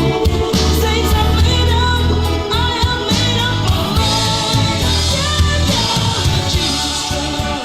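Gospel song playing: a singing voice over a band with a steady bass line and drums.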